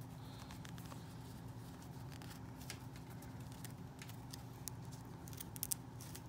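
Small clicks and rustles of a plastic fashion doll being handled as a fabric dress is worked onto it, with a few sharper ticks near the end, over a steady low hum.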